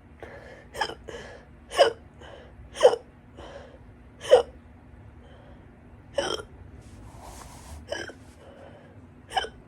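A woman's loud hiccups in a stubborn bout: about seven short, sharp hics at irregular intervals of one to two seconds, some followed by a softer catch. A brief breathy hiss comes a little past the middle.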